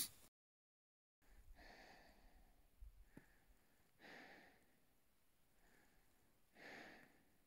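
Faint breathing of a climber at high altitude, three slow breaths roughly two and a half seconds apart, after a second of dead silence.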